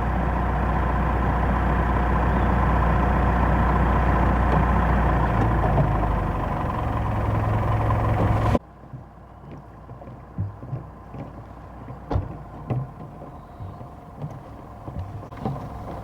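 A steady engine running with a low drone for about the first eight and a half seconds, cut off abruptly. After that, a much quieter background with scattered short knocks and taps.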